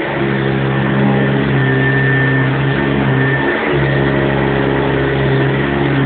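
1976 Hoover upright convertible vacuum cleaner running steadily over a rug, a loud motor hum with a brief dip in its tone about three and a half seconds in.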